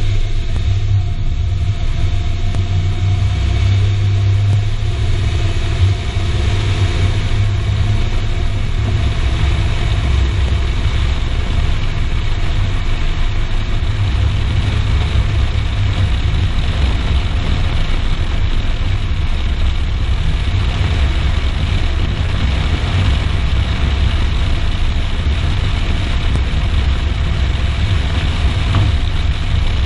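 A car running with a steady low rumble, being checked for an abnormal chassis noise; a single brief bump about six seconds in.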